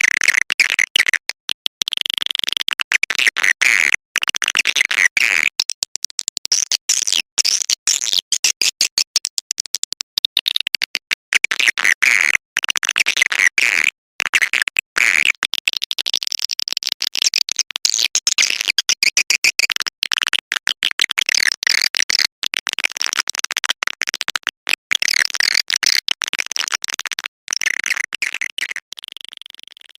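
Recorded swiftlet calls played as a lure sound for a swiftlet house: dense, high, rapid chirping and twittering from many birds, broken by many brief gaps, fading out near the end.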